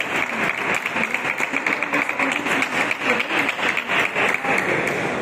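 Spectators clapping, with a few voices mixed in, just after a point is won in a table tennis rally. The clapping stops near the end.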